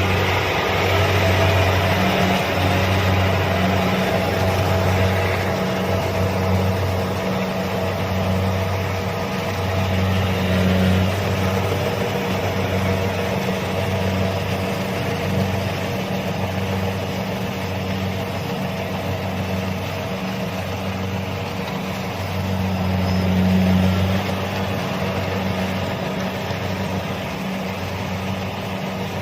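Kubota DC-70 rice combine harvester running steadily while it harvests: a continuous diesel engine and threshing-machinery drone, with a low hum that swells and dips unevenly.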